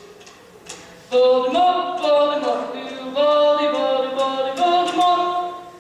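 Several voices singing together a cappella, in held sung notes that come in about a second in and cut off sharply at the end.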